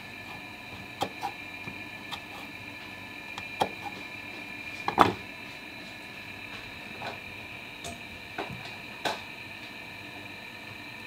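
Scattered light knocks and clicks of a knife and fingers on a wooden cutting board while a carrot slice is carved into a garnish, about nine in all, the loudest about five seconds in. A steady high-pitched hum runs underneath.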